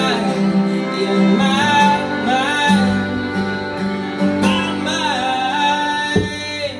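Live acoustic band: two acoustic guitars strumming under a fiddle playing long held notes that slide between pitches.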